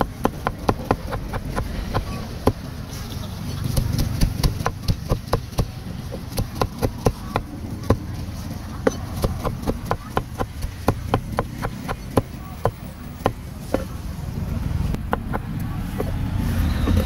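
Meat cleaver chopping crispy grilled pork on a thick wooden chopping block: rapid, even knocks about three to four a second, over a low background rumble.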